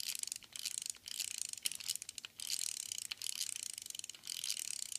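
Plastic gear and ratchet mechanism of a Transmetals 2 Prowl action figure clicking and whirring as its back button is pressed, spinning the wings and head round. A light, high rattle in runs with short breaks between them.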